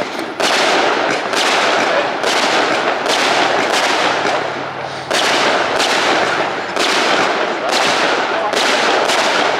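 Fireworks display: shells bursting in quick succession, about one bang a second, with continuous crackling between them and a short lull near the middle.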